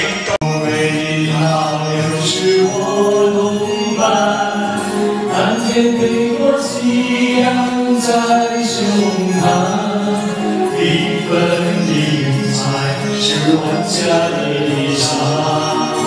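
A man singing a Chinese-language karaoke song into a handheld microphone over the backing track.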